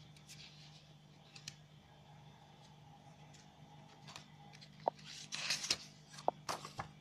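Paper strips of a spiral-bound flip book being handled and turned. There are a few light clicks and taps, with a short paper rustle just over five seconds in as a strip is flipped, over a steady low hum.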